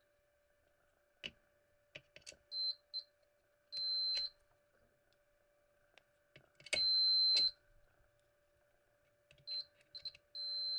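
Multimeter continuity buzzer beeping in a string of high single-pitch beeps, some brief and some held for about half a second to a second, the loudest one a little past the middle. Sharp clicks from the probe tips come between them. Each beep shows that a connection in the power cord and base conducts.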